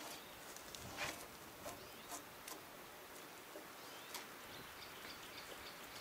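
A drawknife scraping bark off a log in one short stroke about a second in, then a few light clicks and crackles, all quiet.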